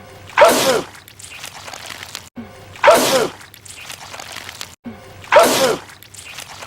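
A man's wet sneeze, repeated three times about two and a half seconds apart as the same clip loops. Each is a short, loud, sharp sneeze, with a sudden cut just before it.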